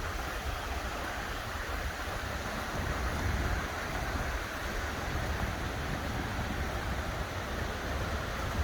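Steady rush of a mountain creek's running water, with a low rumble underneath.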